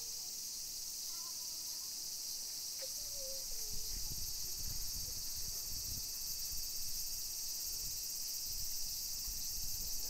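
Steady high-pitched chorus of insects, with a couple of faint short bird calls in the first few seconds and a low rumble from about four seconds in.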